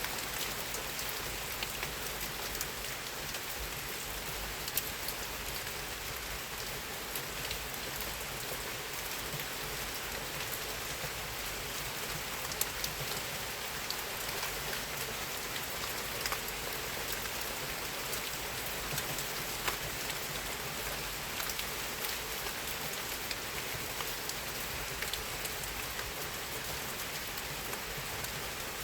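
Steady rain falling, an even hiss with many separate drops ticking sharply here and there.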